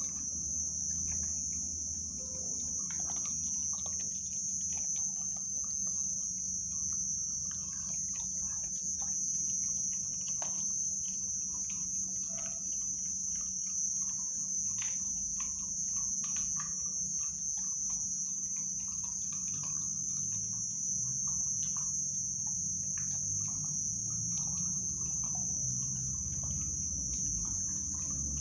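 Crickets trilling in a steady, high-pitched chorus, with scattered short clicks from a pitbull puppy chewing raw meat.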